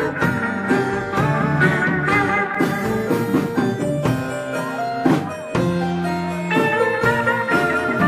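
A live rock band playing: a Vox Jaguar combo organ, a white electric guitar and a drum kit together.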